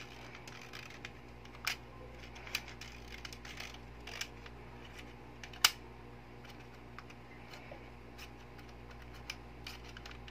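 Small plastic and metal clicks and taps as the spring and piston assembly of a spring-type airsoft M1911 is handled and fitted together, with a few sharper clicks, the loudest about halfway through.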